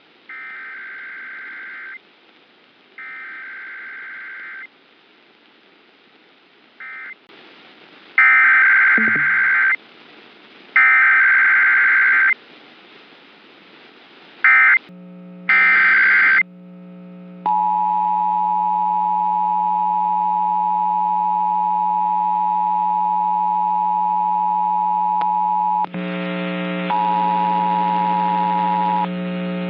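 Emergency Alert System alert opening, heard off a radio broadcast: several shrill, warbling digital header data bursts, each about a second or two long. From about seventeen seconds in, the steady two-tone EAS attention signal sounds for about eight seconds over a low electrical hum, cuts out, and returns briefly near the end. It is the start of a required weekly or monthly EAS test.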